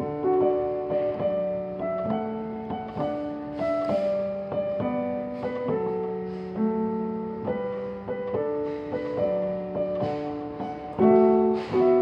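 Digital grand piano played with both hands: a railway chime melody arranged in chords over a bass line, the notes struck and held, changing about once or twice a second, with louder chords near the end.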